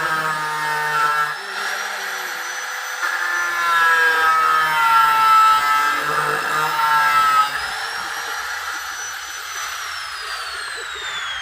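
Electric power tool running with a high steady whine and a rubbing, grinding sound that grows louder in the middle, its whine starting to fall in pitch near the end as it winds down.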